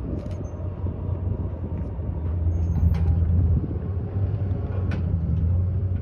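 Diesel engine of a front-end wheel loader running steadily as it drives toward and over the crossing, a low hum that grows a little louder about two seconds in. A few faint clicks are heard over it.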